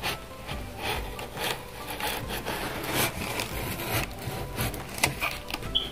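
A plastic safety box cutter's blade slicing through packing tape on a cardboard box: a rough scraping in several uneven strokes, with a few sharp clicks.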